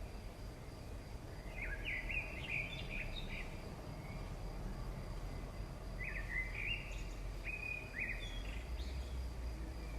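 Birds chirping in two short bursts of quick, high notes over a steady low rumble of background noise.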